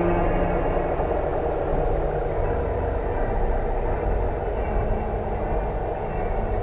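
A steady, dense low rumble with no distinct events, with a faint steady tone or two at the very start.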